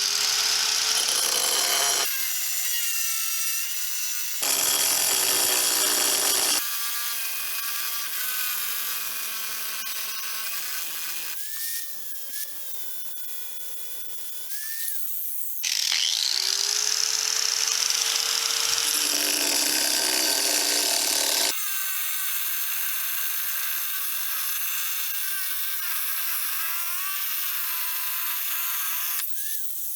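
Budget angle grinder with a diamond blade cutting tile and stone: a high motor whine with grinding noise as the blade bites. The sound changes abruptly several times between short cuts, and a little past halfway the motor spins up with a rising whine.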